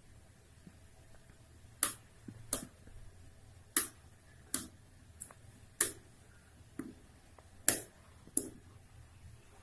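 Small tactile push buttons on a breadboard RF transmitter circuit being pressed with a finger: about nine sharp clicks at irregular gaps of under a second.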